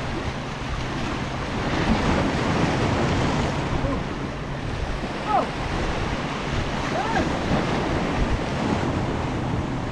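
Sea waves breaking and washing over the rocks of a breakwater, swelling and easing, with wind buffeting the microphone.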